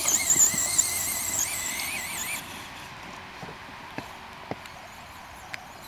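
Traxxas Slash RC truck's brushless electric motor whining high, its pitch wavering up and down with the throttle, then cutting off suddenly about two and a half seconds in. A few faint clicks follow.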